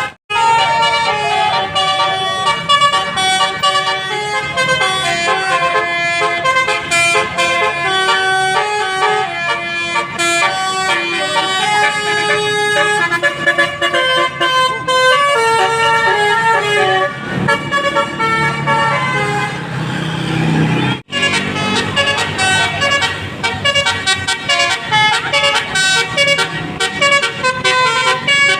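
Tour-bus telolet horns, multi-tone musical air horns, playing short melodic tunes one after another over the sound of the buses. A low engine rumble swells for a few seconds about two-thirds of the way through, just before a brief break in the sound.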